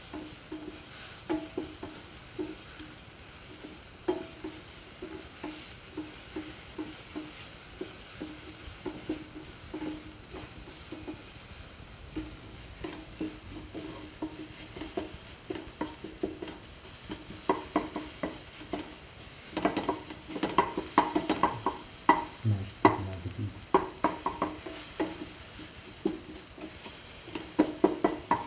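A spatula scraping and tapping against a pan as tomato, shallots, ginger and garlic are stirred in a little hot oil, over a faint sizzle. The strokes come faster and louder from about two-thirds of the way in.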